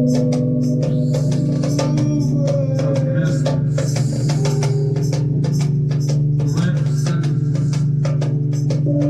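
Music: fast, dense percussion over a steady low drone and held, sustained notes that shift from time to time.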